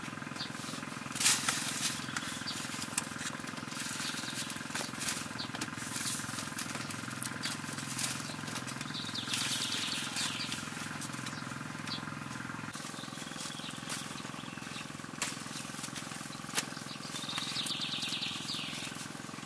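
Cucumber plants being handled: leaves rustling, with sharp clicks and snaps as fruit is picked, over a steady low hum. A short high buzzing comes twice, about halfway and near the end.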